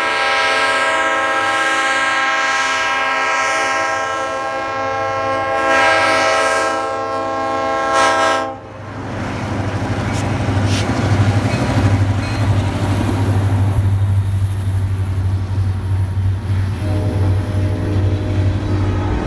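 A freight train's diesel locomotive sounds its air horn for the grade crossing for about the first eight and a half seconds, in blasts that run together and then cut off. The lead diesel locomotives then pass with a steady low engine drone, followed by the rumble of freight cars rolling by.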